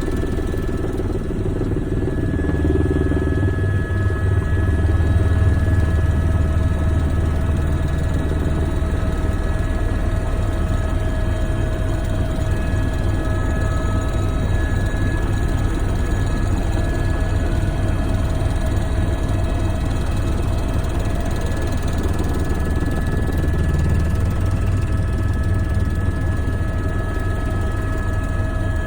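Helicopter's rotor and engine running steadily in flight: a constant low drone with steady whining tones above it, heard from inside the cabin.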